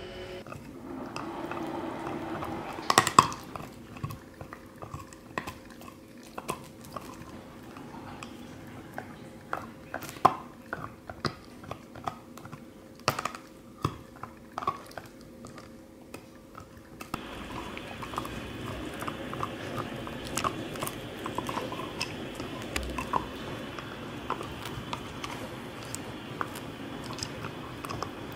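A small dog gnawing a hard bone-shaped chew toy: teeth clicking and scraping on it in irregular ticks, with a louder cluster of knocks about three seconds in.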